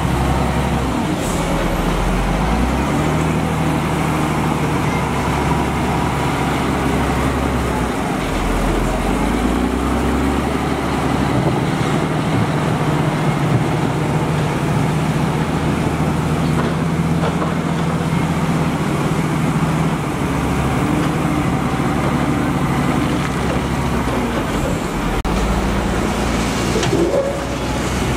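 Diesel engines of heavy construction machinery running steadily, their pitch stepping up and down a few times.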